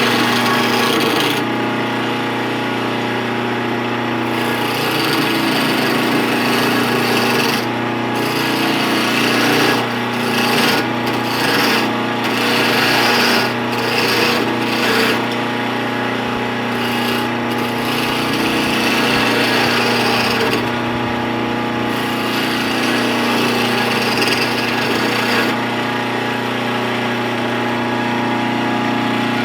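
Wood lathe running with a steady motor hum while a hand turning tool cuts a spinning wooden chisel handle with a dense scraping noise. The cutting noise drops out briefly several times in the middle.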